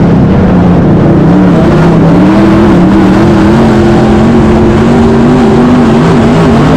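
Race car engine running at racing speed, very loud and distorted. Its note dips about a second and a half in, then rises again and holds, wavering with the throttle.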